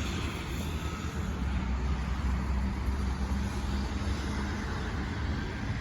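Road vehicle engine running with a steady low rumble, amid traffic noise.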